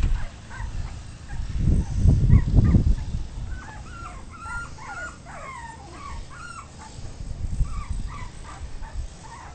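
Young puppies whimpering and yipping: a quick run of short, high squeaky cries in the middle, then a few scattered ones. Low rumbling thumps come in the first few seconds.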